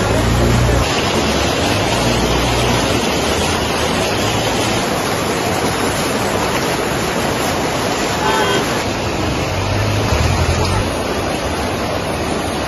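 Fast-flowing brown floodwater rushing and churning across a road: a loud, steady rush of water, with low rumbles near the start and about ten seconds in.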